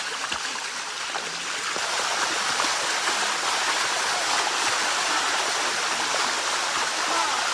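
Water of a shallow waterfall running over rock, a steady rushing that grows a little louder about two seconds in.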